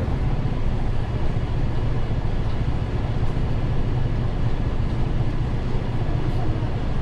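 Ikarus EAG E94 city bus on the move, heard from inside the passenger cabin: a steady low rumble of engine and road noise.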